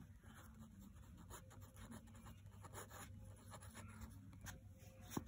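Pen writing on paper: faint, irregular scratching strokes as words are written by hand, with a small sharp click near the end.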